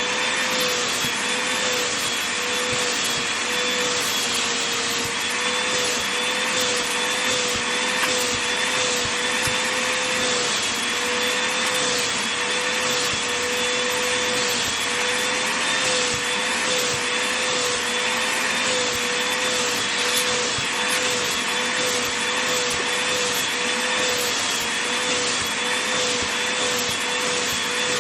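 Vacuum cleaner running steadily with a steady hum, working over a fluffy blanket. Faint irregular rustles and scuffs run under it.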